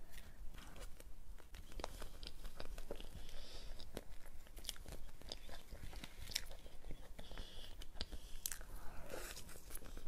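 Close-miked eating of a soft cream cake: a metal spoon scooping and clicking, and mouth and chewing sounds with many sharp crunchy clicks.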